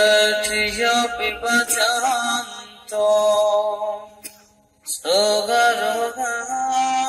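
Theravada Buddhist monks chanting Pali blessing verses in long, drawn-out phrases on a steady pitch, breaking twice for breath, the second break about two-thirds of the way in.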